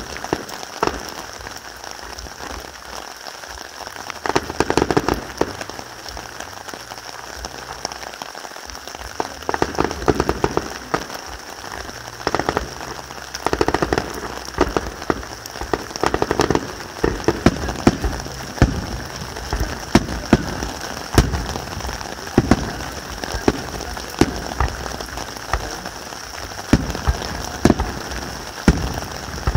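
Aerial firework shells bursting, heard as a string of sharp bangs over a constant crackling hiss. The bangs come thicker and more regularly in the second half.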